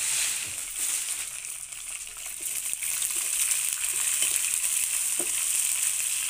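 Crushed garlic, dried red chillies and curry leaves sizzling in hot oil in a metal kadai as a steady hiss. Light scrapes of a perforated steel spoon stir them, frying the garlic towards crisp.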